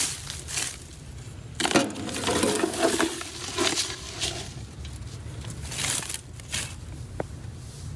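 Dry plant debris rustling and crunching in irregular handfuls as a flower bed is cleared, with a denser stretch of crunching a couple of seconds in.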